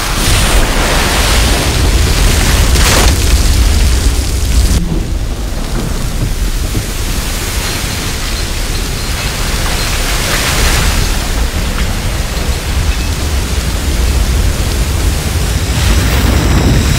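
Gas and oil gushing out of a blown-out oil well: a loud, steady rushing hiss over a deep rumble.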